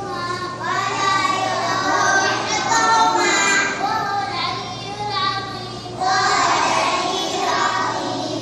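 Young kindergarten children singing, with a low steady hum underneath.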